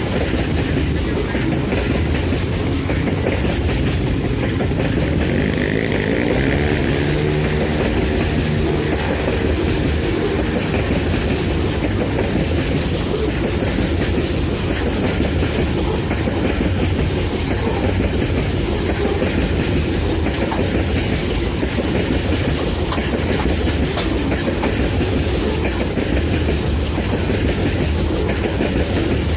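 Long Babaranjang coal train rolling by, its wagon wheels clattering steadily on the rails, with a brief whine a few seconds in.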